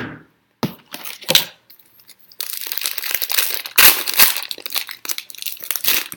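Foil wrapper of a football trading card pack being torn open and crinkled by hand: a few short knocks and rips at first, then several seconds of continuous crackling as the wrapper is pulled apart.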